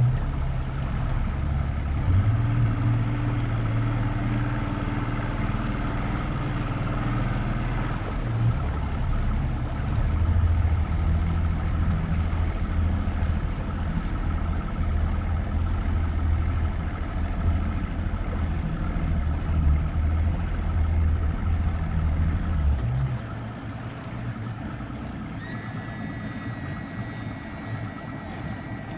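Motorboat engine running steadily under way, a low hum with water and wind hiss over it. About 23 seconds in it drops to a quieter, lower run, and a few seconds later a thin, steady high tone comes in.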